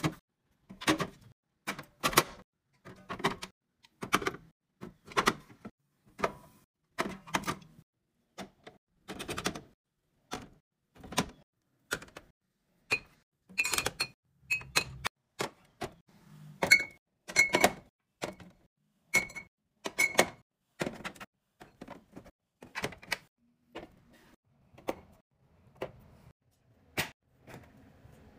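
Hard containers and jars being set down and their lids snapped and tapped while restocking a fridge. It is a steady run of sharp clicks and knocks, about one or two a second, with a few ringing glassy clinks around the middle.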